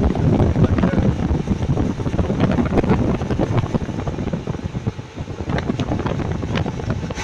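1989 Chevrolet S10 Blazer engine running with an exhaust leak: an uneven low rumble with scattered crackles, heavily mixed with wind and rubbing noise on the microphone.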